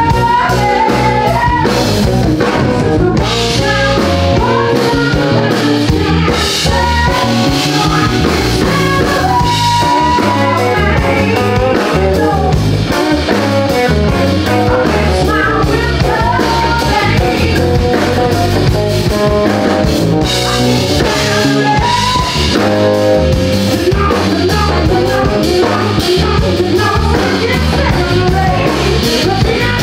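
Live blues band playing at a steady loud level: drum kit and guitar under a bending lead melody line.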